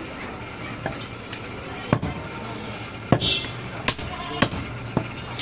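Butcher's cleaver chopping mutton: about six irregular blows, the loudest about two and three seconds in, over market background chatter.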